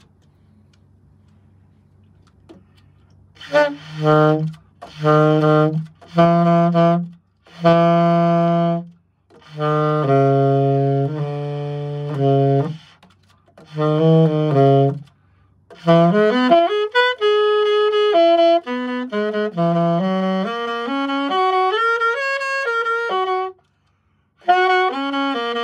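Brand-new Yamaha YAS-280 alto saxophone being test-blown. After a few quiet seconds come a series of long held low notes with short gaps, then a flowing melodic line moving up and down, a brief pause, and playing again near the end. The new horn blows freely straight out of the box.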